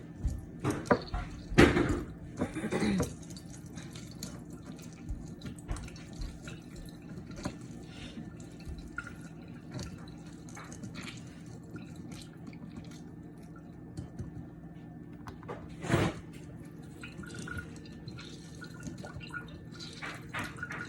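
Liquid dripping, with small clinks and a few louder handling knocks, over a steady low hum.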